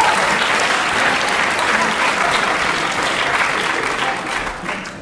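Audience applauding, a dense patter of clapping that dies away near the end.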